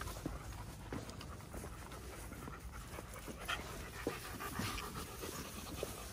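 A dog panting, with light rustling of movement through grass.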